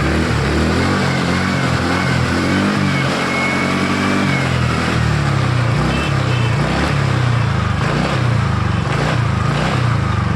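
TVS Ntorq scooter's single-cylinder four-stroke engine running steadily, revved up once and dropping back in the first half. It runs clean, the sound called right after the one-way starter clutch repair.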